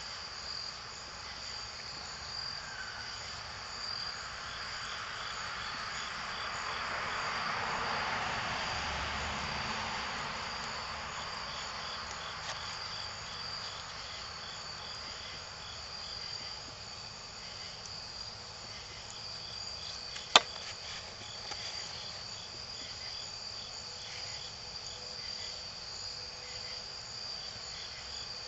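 Crickets chirping steadily in a high, continuous trill. A soft rushing sound swells and fades around eight seconds in, and a single sharp crack comes about twenty seconds in.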